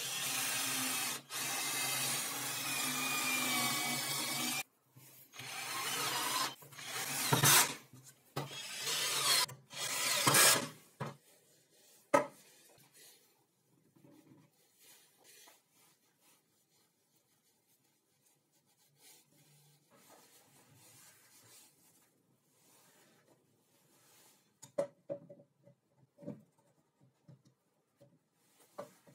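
Cordless drill boring into a clamped wooden block: one steady run of about four and a half seconds, then several shorter runs up to about ten seconds in. After that, quiet rubbing and handling of wood, with a few light clicks and knocks near the end.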